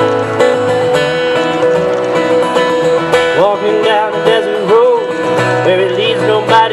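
Live acoustic song, guitar playing steadily; about halfway a wavering melody line with sliding pitch joins in.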